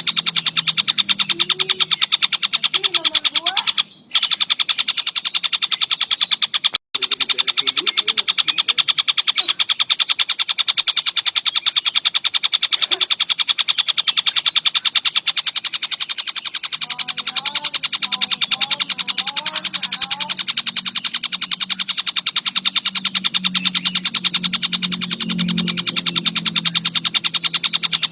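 Tengkek buto kingfisher giving a long, very rapid rattling call, loud and unbroken apart from two brief breaks in the first quarter. Faint chirps from other birds sit underneath.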